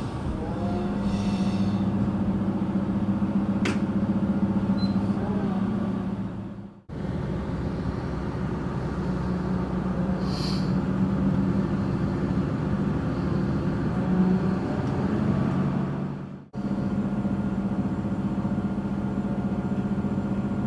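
Diesel railcar running, a steady engine hum and rumble. The sound drops out sharply twice, about a third of the way in and again near the three-quarter mark.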